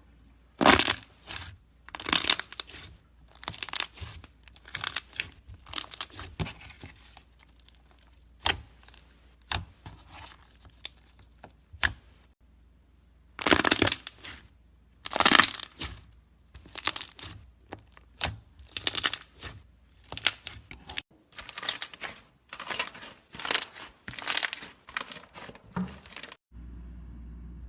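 Slime being squished and played with, giving repeated short crackling, tearing sounds with a brief pause about halfway through. The crackling stops shortly before the end, leaving a steady low hum.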